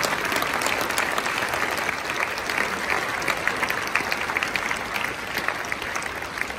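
Large audience applauding, many hands clapping at once, easing off slightly near the end.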